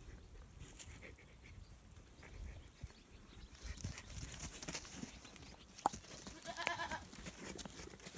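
A goat bleats once, briefly, near the end, over faint scuffling on straw, with a single sharp knock just before the call.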